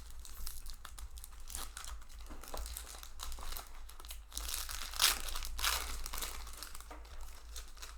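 Magic: The Gathering booster pack wrappers crinkling and tearing as packs are opened and the cards handled, with irregular crackles, the loudest about five seconds in.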